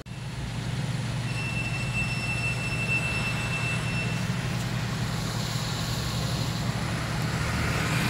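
A car's engine and road noise heard from inside the cabin while driving slowly in traffic: a steady low hum with a rushing haze that grows slightly louder toward the end. A faint thin high tone sounds for a few seconds in the first half.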